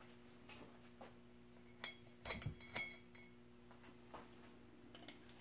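A few faint, scattered metallic clinks and taps as hand tools are picked up and set down on a metal workbench, the loudest a little past two seconds in, over a faint steady hum.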